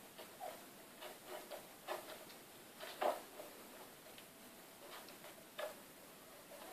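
Kittens moving about a carpeted cat tree: faint, irregular light taps and scratches, the loudest about three seconds in.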